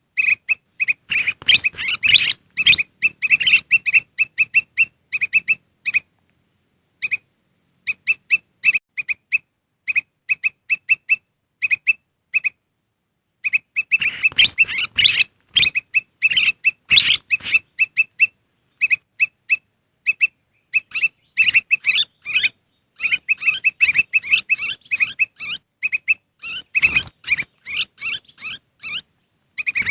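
Kutilang emas bulbuls giving rapid, agitated chirping calls in dense runs, with short breaks about six and twelve seconds in: a lure recording made to draw in wild birds.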